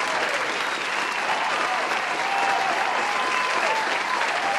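Large audience clapping steadily.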